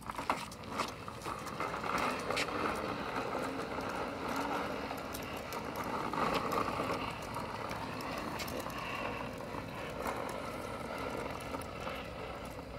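Plastic toy bubble lawn mower pushed along concrete: its hard plastic wheels rolling and rattling steadily, with many small clicks.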